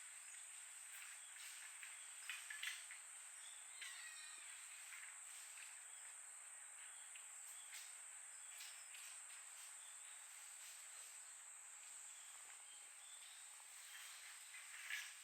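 Faint, steady, high-pitched trill of insects, with a few soft rustles and ticks and a brief chirp about four seconds in.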